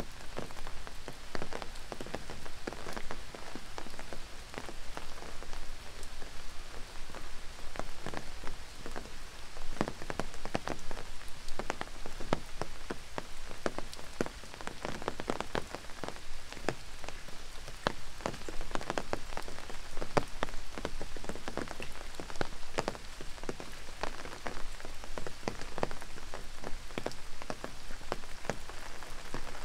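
Steady rain with many large, irregular drops striking a surface close by, a dense patter of sharp ticks over a constant hiss.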